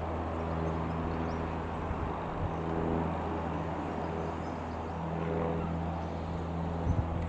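Piper PA-28-180 Cherokee's single piston engine and propeller droning steadily as the light plane flies over, with a couple of brief knocks near the end.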